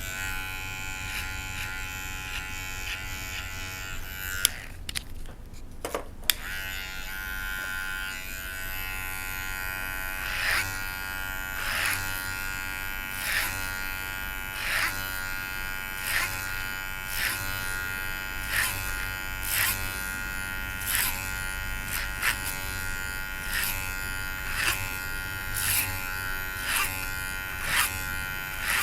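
Electric hair clippers running with a steady buzz, cutting out briefly with a click about four and a half seconds in and clicking back on about a second and a half later. From around ten seconds in, a regular swishing stroke comes a little more than once a second as the clippers pass through short hair.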